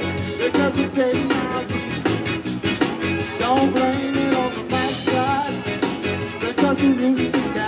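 Zydeco band playing live and loud: electric guitars, keyboard, drum kit and rubboard keeping an upbeat rhythm, with a singer over the top.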